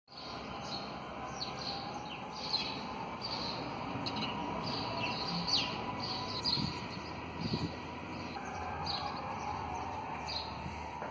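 Small birds chirping, short high chirps repeating about once or twice a second, over a faint steady hum.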